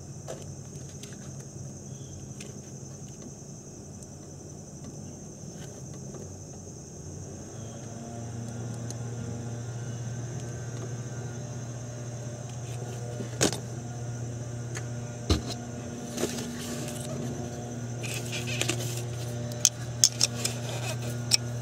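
Light metallic clicks and scraping of a thin pick tool working in the solenoid valve's port on an automatic transmission case, prying out the ATF feed screen. A handful of sharp clicks come in the second half, over a steady low hum.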